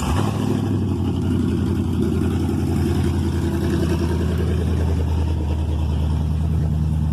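Chevrolet Camaro SS's 6.2-litre LT1 V8 catching at the start and settling into a loud, steady, low idle, running essentially open header with gutted catalytic converters.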